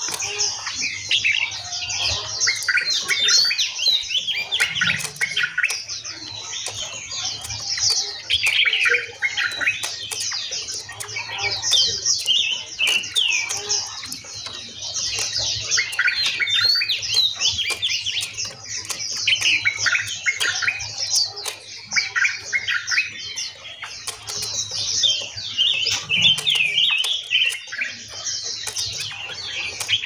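Several caged songbirds chirping and singing together: a dense, unbroken chorus of quick, high, sweeping notes from many birds at once.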